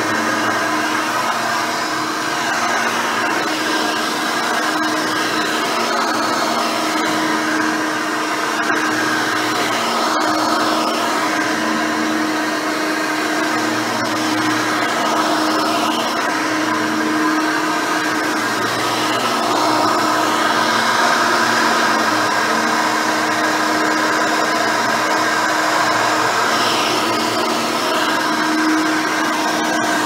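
Hoover Elite 600 upright vacuum, a 6-amp motor with a nine-blade fan and a brush roll, running steadily while it is pushed back and forth over carpet. A constant motor hum and whine over air rush, with a low rumble that swells and fades every couple of seconds.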